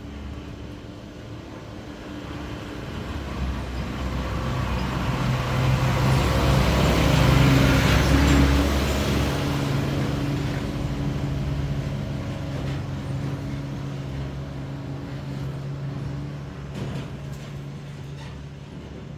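A heavy motor vehicle's engine running with a steady low hum. It grows louder to a peak about eight seconds in, then slowly fades, like a vehicle approaching and passing.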